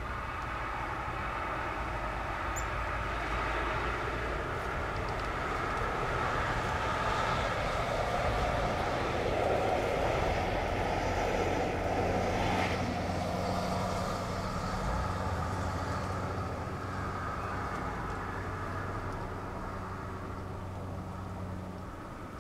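Vehicle traffic: a steady rumble that swells to a peak about ten seconds in, with a low hum, then slowly fades.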